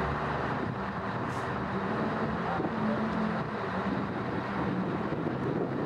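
Truck engine running steadily: a low engine hum that wavers a little in pitch over a broad background noise.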